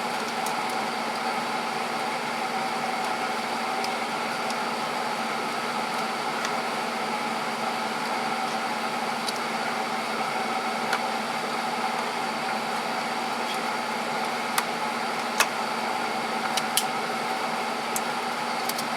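A steady mechanical hum with faint pitched tones runs throughout. A few light clicks or taps come near the end.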